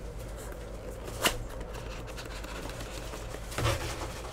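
Cardboard trading-card box being handled and opened by hand: a sharp click about a second in, then a short rustling scrape of the flap near the end, over a low steady hum.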